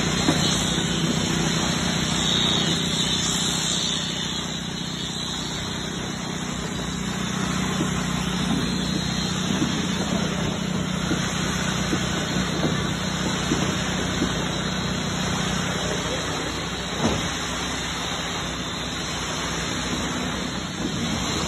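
Concrete pump and truck engine running steadily, a low hum under a rushing haze, while high-slump concrete is pumped onto the slab. A single sharp knock sounds late on.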